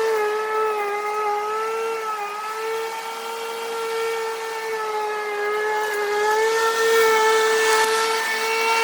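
Corded electric lawnmower running with a steady high motor whine, its pitch dipping slightly and recovering as the load changes.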